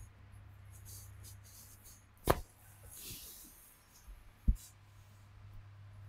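Two sharp cracks from a chiropractic manual adjustment, about two seconds apart, the second deeper. A faint low hum runs underneath.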